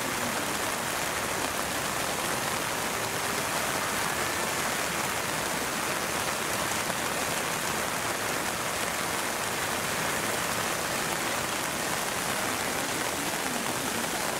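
Steady hard rain falling on the surface of a pond, an even hiss of drops on water.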